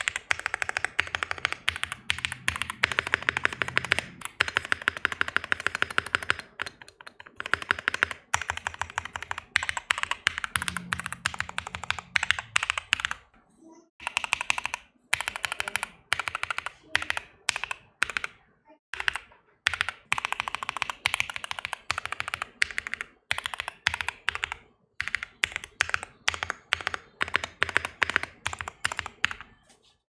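Fast typing on a Bakeneko 60 mechanical keyboard fitted with lubed Tecsee linear switches, a POM plate and PBT keycaps: dense runs of keystroke clacks, broken by brief pauses every few seconds.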